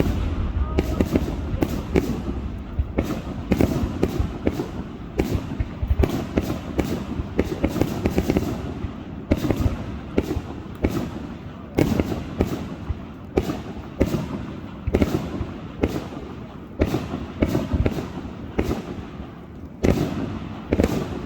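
Fireworks going off in a dense barrage: sharp bangs and deeper booms following each other irregularly, several a second, with no let-up.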